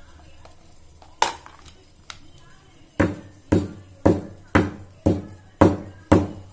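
Long pepper being pounded: a single blow about a second in, then steady blows about two a second from three seconds on.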